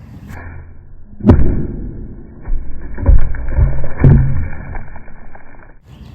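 Heavy, dull thuds of a 2x6 board being struck and broken apart: one about a second in, then three more in quick succession around three to four seconds in. The sound is muffled, with no treble.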